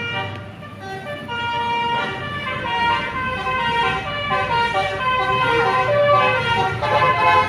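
Indonesian bus "telolet" horn, a multi-tone horn playing a melody of stepping notes that change every fraction of a second, over a low steady rumble.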